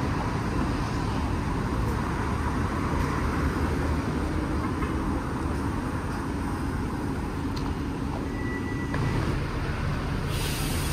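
Street ambience of steady road traffic noise, a continuous rumble and hiss. A short high beep sounds a little past eight seconds, and a brighter hiss comes in near the end.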